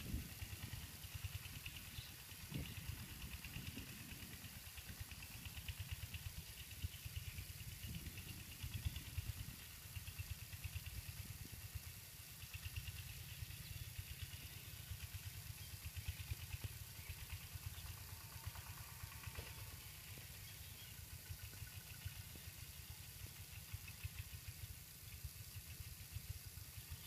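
Diesel engine of a ploughing tractor running steadily and faintly at a distance, with an even low chugging.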